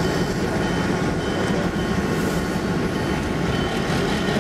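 EMD F7A diesel-electric locomotive with its 16-cylinder 567 two-stroke engine running steadily as it moves onto the turntable.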